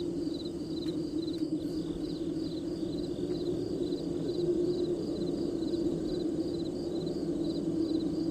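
Crickets chirping steadily, about two pulsed chirps a second, over a louder continuous low drone.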